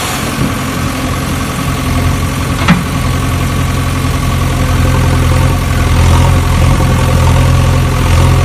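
Battery-powered toy excavator running, a loud, steady engine-like hum, with a single sharp click a little under three seconds in.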